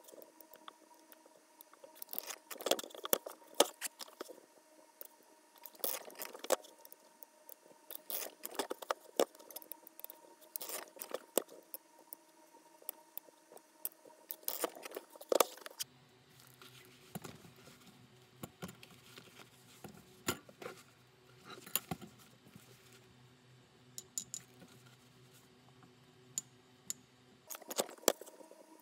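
Mallet striking a four-prong stitching chisel to punch stitching holes through leather: a run of irregular sharp knocks and taps, denser in the first half and sparser after about 16 seconds.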